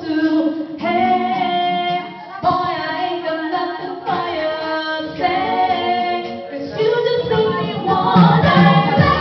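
Female voices singing a song, with long held notes.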